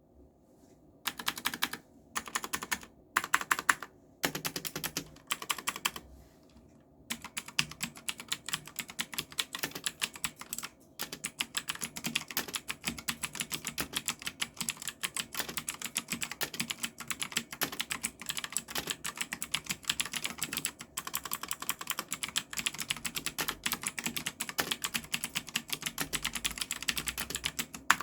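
Typing on a GALAX EX-03 gaming mechanical keyboard with clicky Outemu blue switches. A few short bursts of keystrokes come in the first seven seconds, then the typing runs on fast and without a break.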